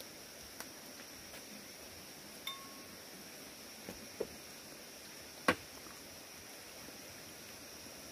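A handful of short clinks and knocks, one ringing briefly and the loudest a little past halfway, over a steady high hiss.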